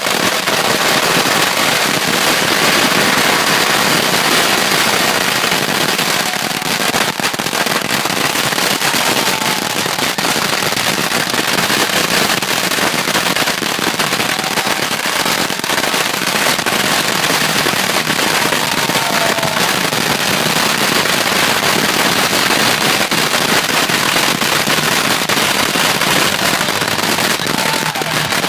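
A string of about 10,500 firecrackers going off in one dense, unbroken crackle of rapid pops at a steady loudness.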